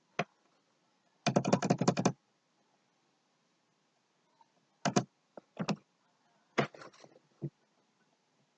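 Computer keyboard keys being pressed: a quick run of keystrokes about a second in, then a few scattered single key presses.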